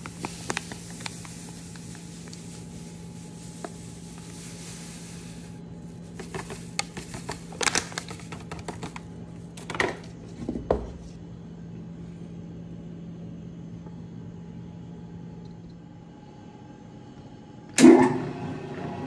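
Dry yeast poured from a foil packet into a glass measuring jug with a soft hiss, then a few light clicks and knocks, over a steady low hum that stops about three quarters of the way through. Near the end the START button of a large commercial stand mixer is pressed and its motor comes on with a sudden loud clunk and keeps running.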